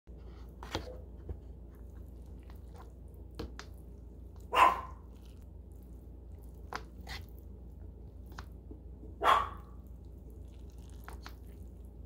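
A metal fork stirs noodles in a bowl, with light clicks of the fork against the bowl now and then. Two short, louder sounds stand out, one about four and a half seconds in and one a little after nine seconds.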